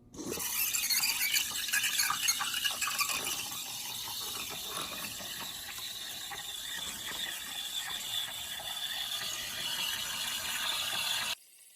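Steam wand of a DeLonghi BCO420 espresso machine frothing cold whole milk, its tip just below the surface of a tilted pitcher. The loud steam hiss is rougher at first, then settles into a steadier hiss, and stops abruptly near the end.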